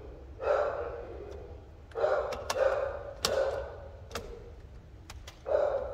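Scattered sharp metal clicks as busbars are set down over the threaded terminal studs of Ford C-Max lithium cells, with a person breathing heavily in between.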